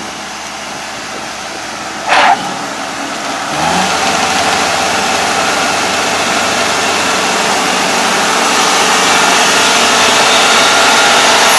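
ANR460 combine harvester engine running; a brief loud noise about two seconds in, then the engine revs up with a short rising tone and the machine runs louder, growing louder still as it comes closer.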